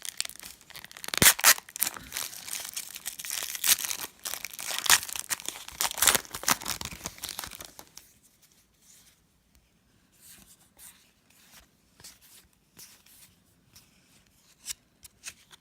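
A trading-card pack wrapper being torn open and crinkled for about eight seconds, then quieter scattered soft rustles and light ticks as the cards are handled.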